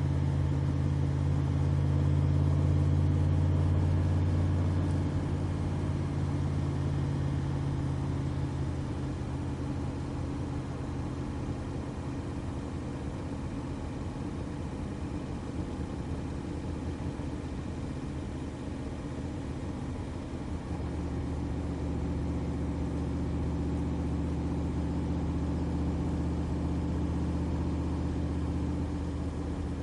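Backdraft RT3 roadster's 427 cubic-inch V8 crate engine running steadily under way, with no sharp revs. Its note is louder for the first few seconds, eases off for a stretch, and picks up again about two-thirds of the way through.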